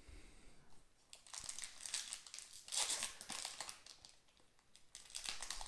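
Plastic-foil Magic: The Gathering booster pack wrapper crinkling as it is handled, in two stretches: from about a second in for about three seconds, and again near the end.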